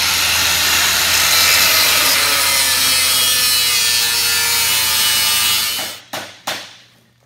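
Angle grinder cutting or grinding steel, a loud steady grinding hiss with a faint slowly falling whine, which stops abruptly about six seconds in. Two short sharp knocks follow.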